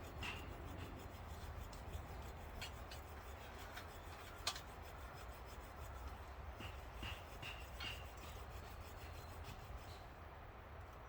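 A newly lit small tinder fire crackling faintly, with scattered light pops; one sharper pop about four and a half seconds in.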